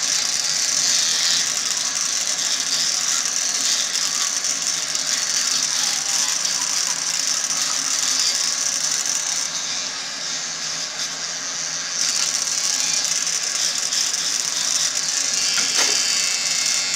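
Teeth being brushed with a toothbrush: steady scrubbing of bristles on teeth, easing briefly a little past the middle.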